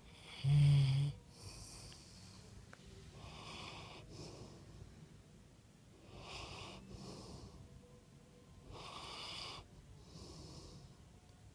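A person snoring in their sleep. A loud, deep, buzzing snore comes about half a second in, followed by softer wheezy breaths in and out every couple of seconds.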